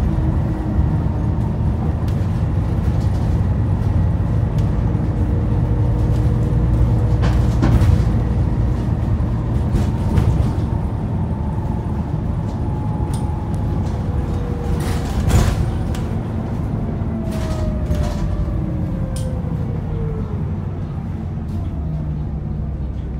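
Alexander ALX400 double-decker bus heard from inside, under way: a steady diesel engine rumble with whining drive tones and occasional rattles and knocks from the body. About two-thirds of the way through, the whine slides down in pitch as the bus slows for its stop.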